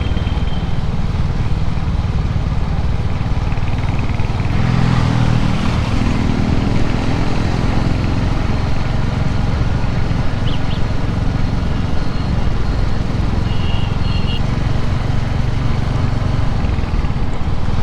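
Motorcycle engine running steadily while riding in city traffic, with a low rumble throughout; the engine note rises and swells about five seconds in as the bike pulls away or speeds up. A couple of short high beeps sound later on.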